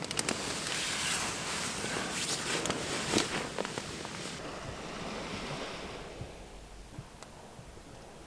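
Sea waves washing onto the shore: a rushing surge with a few sharp clicks through the first four seconds, then easing to a softer hiss.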